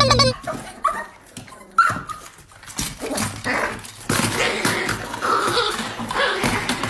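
A dog yipping and whimpering: two short, high, rising cries about a second apart, then a louder, busier stretch of dog noises from about three seconds in as a small dog wrestles a toy on a wooden floor.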